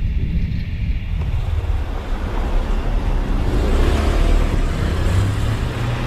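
Motorcycle ridden slowly through city traffic: a steady low engine and road rumble, with wind on the microphone and the noise of surrounding cars.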